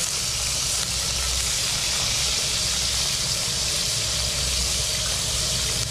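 Chili paste sizzling in hot oil in a wok, a loud steady hiss that begins as it hits the oil, with a low rumble underneath.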